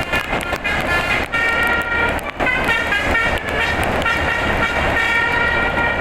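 Indonesian bus telolet horn driven by a DAV tune module, playing a melody. Several horn tones sound together, each note held for about half a second to a second and a half, with the pitch changing from note to note.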